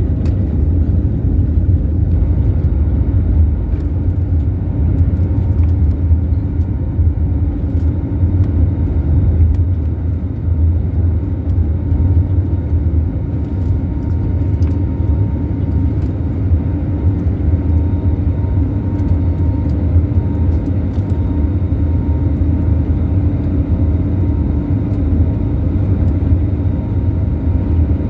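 Airbus A320neo jet engines and airflow heard inside the passenger cabin during the climb just after takeoff: a steady, loud low rumble, with a faint steady whine above it from about halfway through.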